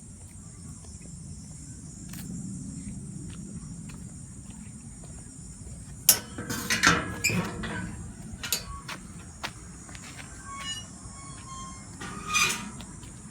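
Steady high drone of insects throughout. About six to eight seconds in comes a cluster of loud, sharp knocks and scrapes, with another loud one near the end and a few short chirps in between.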